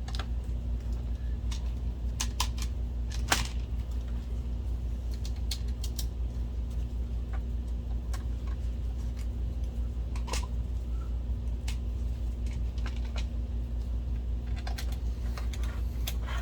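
Scattered small clicks and taps as screws are started by hand into a projector's case, one sharper click about three seconds in, over a steady low hum.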